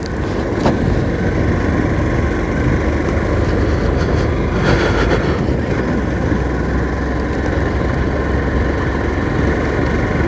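Motorcycle engine running steadily as the bike rides along a rough concrete road, picked up by the rider's phone on the handlebars as a dense, steady low rumble mixed with road and wind noise. There is a brief brighter rush about halfway through.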